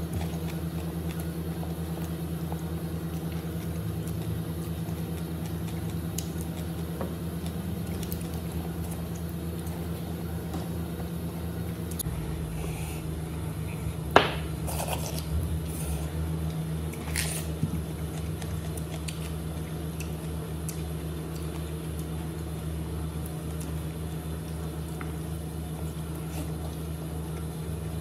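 Soft squelching of şirdan being torn and handled by hand, over a steady low hum, with a single sharp click about halfway through.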